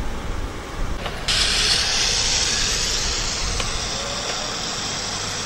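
Steady hiss of rushing river water that starts abruptly about a second in.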